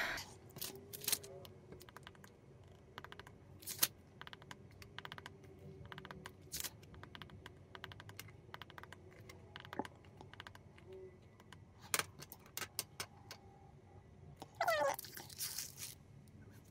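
A plastic stylus tapping on the glass screen of a tablet running a calculator app, an uneven run of light clicks as figures are entered. Near the end, paper rustles as a notebook is handled.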